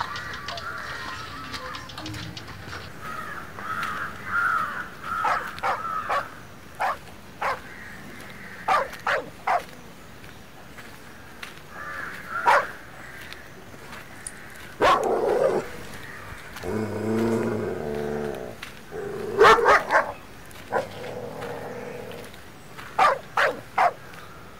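A dog barking on and off in short, sharp barks, sometimes two or three in quick succession.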